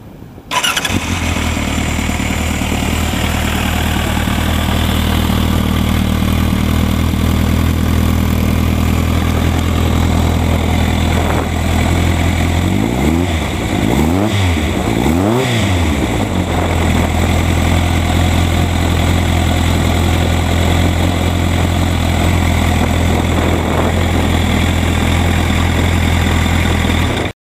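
Kawasaki Zephyr 1100's air-cooled inline-four engine, breathing through an aftermarket Over Racing USA 4-into-1 exhaust, comes in suddenly about half a second in and idles steadily. About midway it gets three quick throttle blips, each rising and falling in pitch, then settles back to idle. The sound cuts off suddenly near the end.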